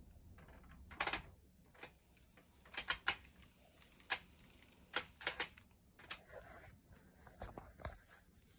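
Tomix N-gauge 225 series model train running on its track, giving faint, irregular sharp clicks, single and in quick clusters, as its wheels pass over the rail joints.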